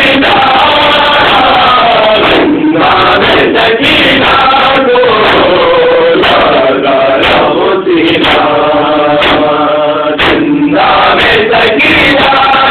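Group of men chanting a noha (Shia mourning recitation) together, voices loud and distorted through the microphone.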